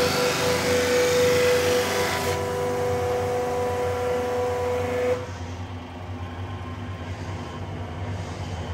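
Makor CST 6 brush sanding machine running, its motors and spinning brush rollers giving a steady whine with several held tones over a hiss. About five seconds in the sound drops abruptly to a quieter, lower running hum.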